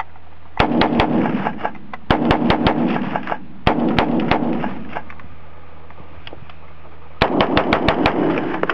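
AR-15 rifle firing quickly, several shots a second, in three strings over the first few seconds, then a pause of about three seconds before another fast string near the end.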